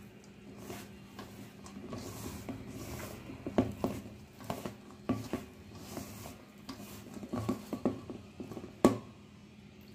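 A hand squishing cauliflower florets through thick wet batter in a stainless steel bowl: irregular soft squelches and light clicks against the bowl, with one sharper click near the end.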